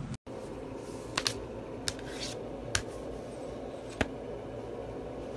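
Several sharp, irregularly spaced clicks over a steady low room hum.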